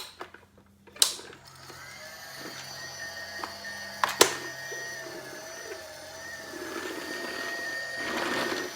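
Kmart toy upright vacuum cleaner running, its small motor making a steady, slightly wavering whine with a ratcheting mechanical rattle as it is rolled over scraps of paper. There is a click about a second in, as it starts, and a sharp knock around four seconds in.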